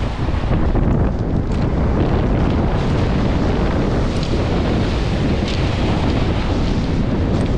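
Wind buffeting the microphone, with sea waves breaking on the shore underneath: a dense, steady rumble heaviest in the low end.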